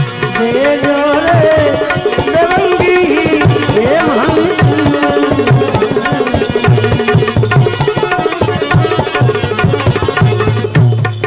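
Gujarati bhajan music: tabla beating a steady, quick rhythm under a melody line whose notes slide and waver.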